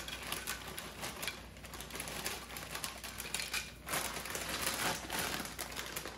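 Doritos tortilla chips poured out of their snack bag onto a plate, a dense run of light clicks and clatter as the chips land, with the bag rustling and crinkling as it is shaken.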